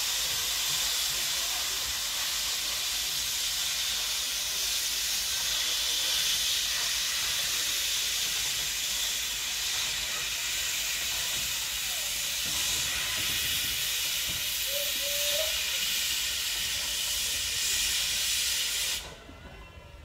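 Steady loud hiss of escaping steam from a Robert Stephenson & Hawthorns 0-4-0 saddle-tank steam locomotive, Agecroft No.3, as it moves slowly along the station with a coach. The hiss cuts off suddenly near the end.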